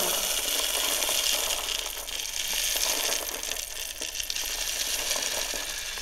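Espresso machine hissing steadily, a rushing, noisy sound with no distinct strokes or tones.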